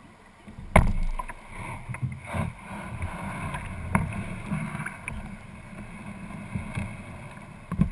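A sudden loud knock about a second in, then irregular bumps and knocks over low sloshing noise: a plastic kayak shifting and bumping against shore rocks, picked up through a camera mounted on its hull.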